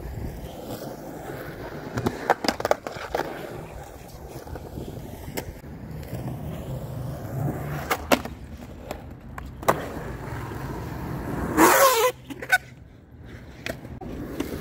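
Skateboard wheels rolling over concrete with a steady rumble, broken by sharp clacks of the board and trucks striking the ground and ramp. About twelve seconds in comes a loud, brief scrape of the board against the quarter-pipe's lip.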